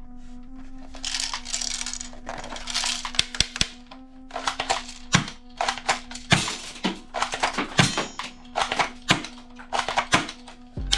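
Background music with a steady drone, over a run of sharp clicks, snaps and short bursts of hiss from toy airsoft pistols being handled and worked.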